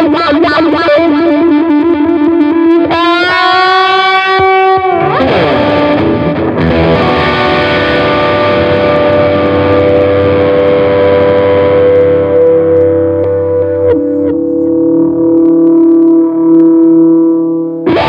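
Squier Affinity Jazzmaster electric guitar played through a Fender Champion 50XL amp with a distorted tone: quick repeated picked notes, a note bent up and held about three seconds in, a slide down, then a long chord left to ring, picked again near the end.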